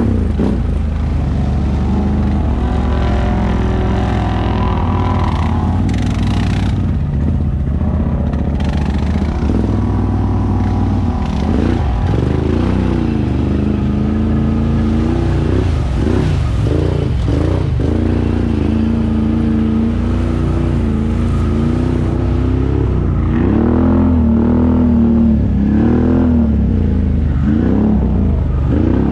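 ATV engine running under way, its pitch rising and falling again and again as the throttle is opened and eased, most often in the second half.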